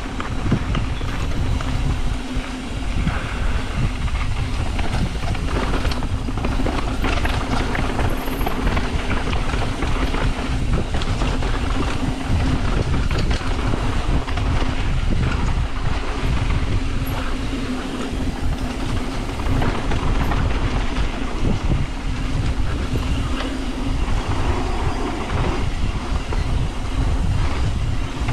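Yeti SB150 full-suspension mountain bike riding a dirt trail: tyres rolling and the bike rattling and clattering over the rough ground, with a steady hum underneath.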